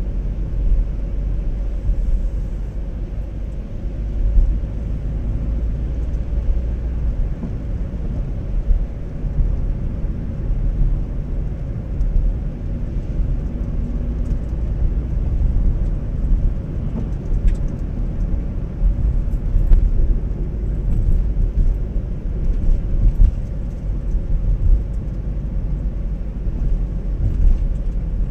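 Car driving on a wet road, heard from inside the cabin: a steady low rumble of engine and road noise, with tyre noise over it.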